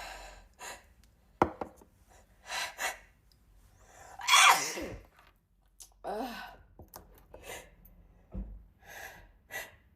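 A young woman's sneezing fit: short gasping breaths in between, with one loud sneeze about four seconds in.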